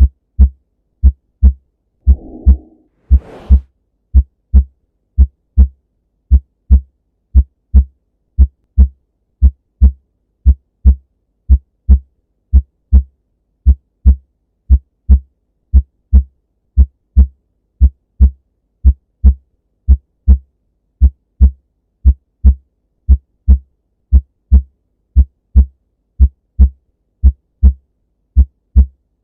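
Normal heart sounds heard through a stethoscope: a steady lub-dub, the first and second heart sounds, at roughly one beat a second. A brief rustle comes about two to three seconds in.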